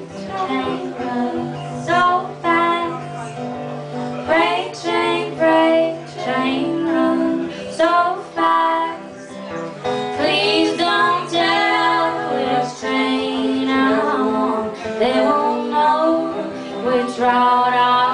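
A young female voice singing a folk song, accompanied by acoustic guitar.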